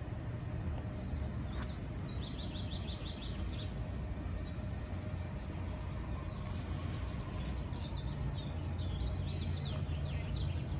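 Small birds chirping, with a quick run of about eight repeated notes around two seconds in and more calls near the end, over a steady low rumble of street traffic that grows a little near the end.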